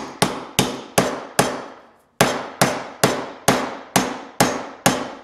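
Mallet striking a steel driver tube about two and a half times a second, each blow a sharp knock with a short ring, with one brief pause about two seconds in: a new press-fit bearing being driven down onto a wood shaper's spindle through its inner race.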